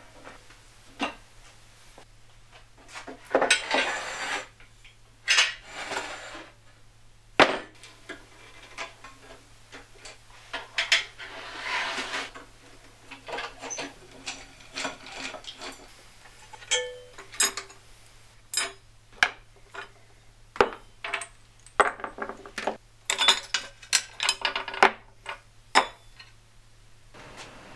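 Metal parts of a 1993 Enlon 16-inch bandsaw being handled and taken apart on a wooden workbench: scattered clinks and clanks of steel rods, a bolt and washers against cast iron, with short scrapes and slides in between.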